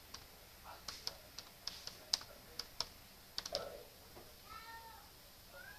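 Typing on a computer keyboard: about a dozen quick, irregular keystrokes that stop about three and a half seconds in. A short wavering call is heard near the end.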